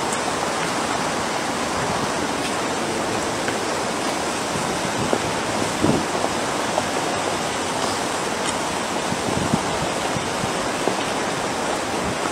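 Steady rushing background noise with no clear source, holding level throughout, with a faint brief sound about six seconds in.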